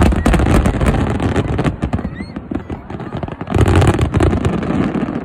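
Fireworks going off: a loud burst at the start, then dense crackling for about two seconds, and a second loud burst with more crackling about three and a half seconds in.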